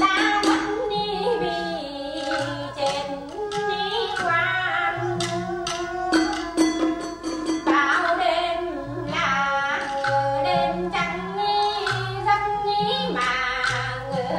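Traditional Vietnamese music: a voice singing over plucked strings, with sharp struck accents and a low two-note pattern repeating underneath.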